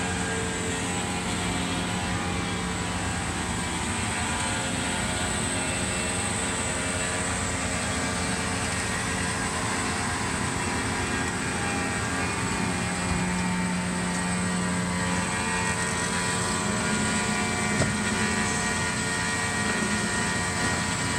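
Cosen C-250NC horizontal bandsaw running: a steady machine sound made of many held tones over a hum.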